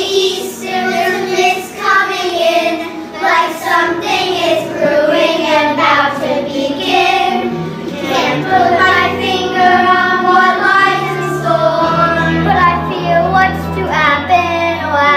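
A children's chorus singing together, with instrumental accompaniment; low held notes in the accompaniment come in about eight seconds in.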